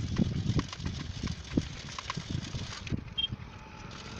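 Wind buffeting the microphone while riding along a road, with irregular low knocks and rattles from the ride over the road surface.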